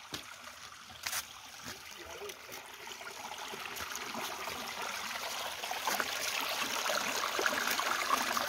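A small rocky creek trickling and running over stones, growing steadily louder from about three seconds in. There is a single knock about a second in.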